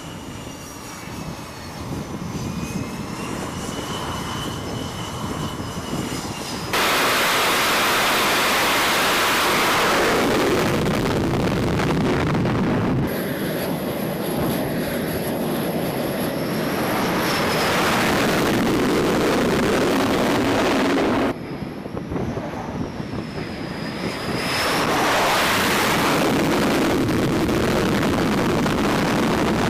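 Carrier fighter jet engines on a flight deck: a high turbine whine that glides up and down, then loud, steady jet noise at high power from about a third of the way in. The sound changes abruptly several times, at each cut between shots.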